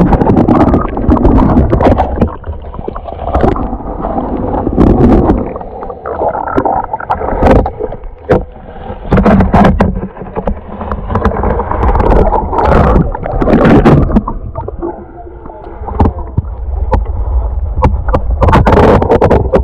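Water splashing and sloshing as a striped bass is landed in a net, with repeated knocks and a heavy low rumble of handling on the microphone.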